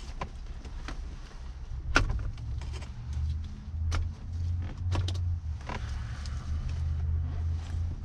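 Scattered clicks and knocks of plastic trim and fittings as a Mercedes W126's center console and radio are worked loose. The sharpest knock comes about two seconds in, and a low rumble underneath strengthens from about three seconds in.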